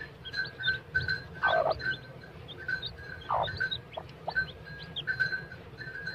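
Newly hatched chicks peeping in the nest around a broody hen: short repeated chirps about three a second, with higher brief peeps. Two longer falling calls come about a second and a half in and again about three and a half seconds in.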